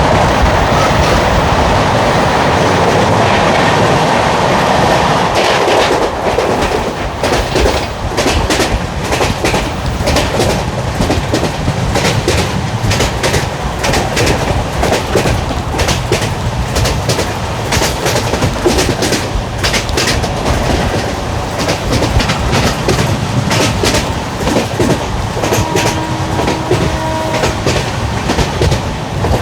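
LHB passenger coach wheels running on the track: a steady rushing noise for the first few seconds, then a dense, irregular clickety-clack of wheels over rail joints.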